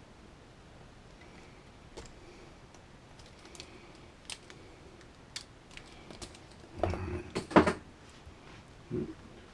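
Small plastic and metal RC crawler parts clicking as they are handled during assembly, then a short, loud clatter about seven seconds in as a piece of the drive shaft comes loose and falls onto the bench. One more knock follows near the end.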